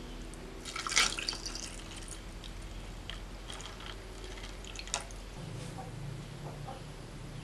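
Coconut milk poured over ice in a glass, trickling and dripping, with sharp clicks of ice against the glass about a second in and once more near five seconds.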